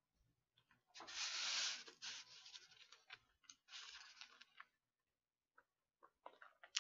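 Eating noises at the table, close to the microphone. A crackling rustle comes about a second in and again, softer, about four seconds in, with scattered light clicks of chopsticks against the dishes.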